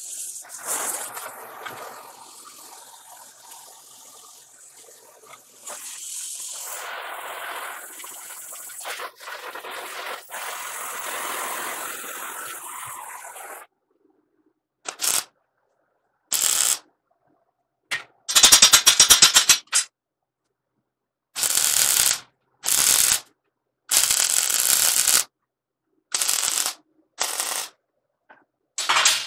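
Oxy-acetylene cutting torch hissing steadily while it heats a steel rod in a vise. About 14 seconds in, this gives way to MIG welding: about eight short crackling bursts of tack welds on flat bar, with silence between them.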